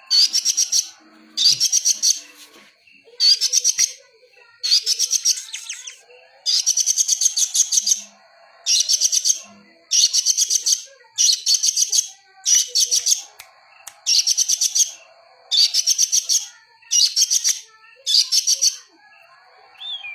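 Small songbird repeating short, very rapid chattering phrases of high notes, over a dozen of them at about one every second and a half, with a faint steady high whine underneath.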